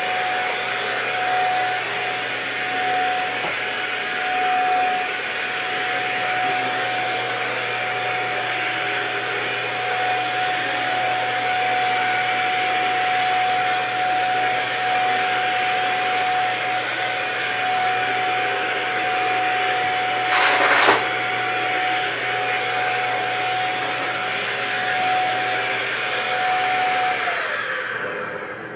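Cordless stick vacuum cleaner running steadily over a rug, a constant motor whine over airflow noise, with a brief loud rattle about two-thirds of the way through. Near the end the motor winds down, its whine falling in pitch as it is switched off.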